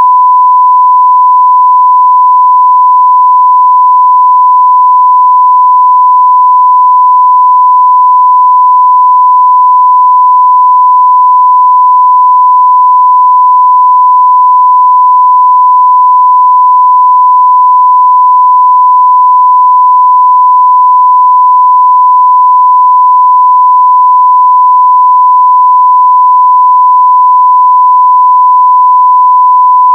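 Pure 1 kHz sine-wave test tone at full scale (0 dB), one steady unbroken pitch: an audio test signal for checking levels and equipment.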